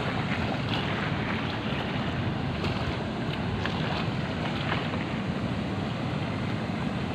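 Steady rush of fast, churning river water below a dam, with wind buffeting the microphone.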